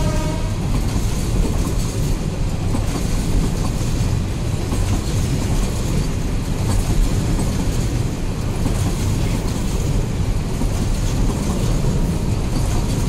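Container freight train wagons rolling past close by: a loud, steady rumble and clatter of steel wheels on the rails. The tail of the train's horn cuts off about half a second in.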